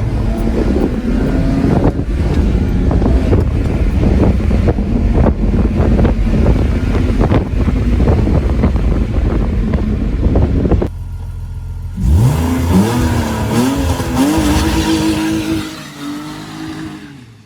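BMW E46 engine with catless headers running loud and revving, its pitch rising and falling. After a short break about eleven seconds in, the revs climb sharply from low, hold high, then fade out near the end.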